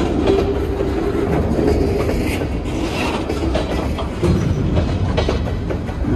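Freight cars rolling slowly past at rail level: steel wheels rumbling and clicking over the rail joints, with a brief squeal in the first couple of seconds.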